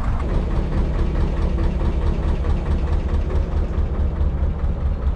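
A narrowboat's old diesel engine running steadily under way, a low, even, rapid beat.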